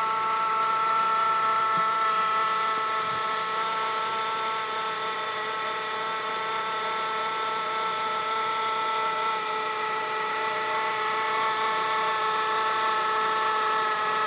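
2008 Honda Civic LX's 1.8-litre four-cylinder engine running with a steady whine made of several high tones from the accessory belt drive. It is the sound of one of the belt-driven pulleys, and it is not cured by a new belt and a new auto-tensioner.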